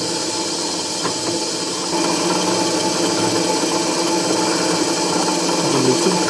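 Benchtop drill press running, its bit drilling out the holes in a 3D-printed plastic part to final size. A steady motor hum that gets louder about two seconds in.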